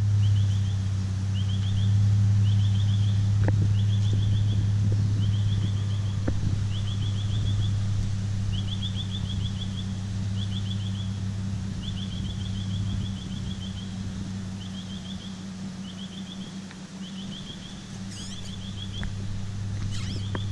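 A vehicle engine running with a steady low hum that fades about two-thirds of the way through and returns near the end. Over it, short high chirping trills repeat about once a second.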